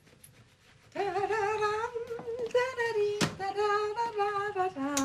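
A woman humming a slow tune on a few long held notes, starting about a second in, with a sharp click of a kitchen utensil about three seconds in.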